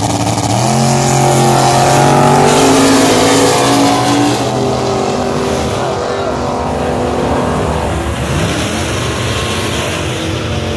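Drag-racing car engines running loud at the starting line while staging. They rev up about half a second in and hold high for a few seconds, then settle back, with another short rev later on.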